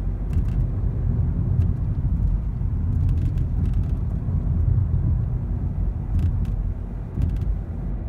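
Steady low road rumble inside a moving car's cabin, with short creaks from the front door's interior trim coming several times. The creaking comes from contact points in the door, mainly the hard plastic door handle housing.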